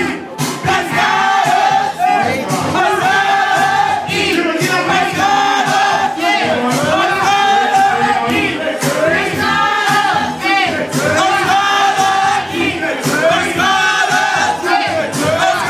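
Loud music with a sung vocal phrase repeating about once a second over a beat, mixed with the voices of a crowd in the room.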